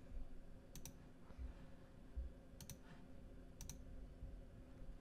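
Computer mouse clicked three times, each click a quick double tick of button press and release, faint, with a couple of soft low bumps between them.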